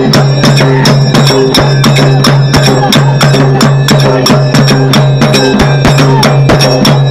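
Rope-tensioned barrel drums beaten with sticks in a fast, steady rhythm, with brass cymbals clashing along and a steady low drone beneath the beat.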